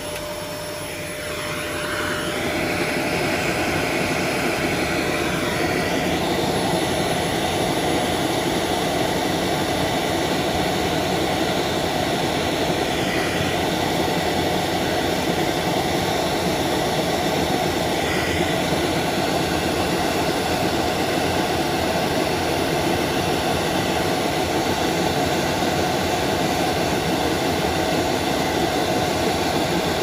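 Vacuum cleaner running steadily, its nozzle held against a dust-clogged CPU cooler fan to suck up the dust being brushed off the blades. The sound gets louder about two seconds in and then stays even.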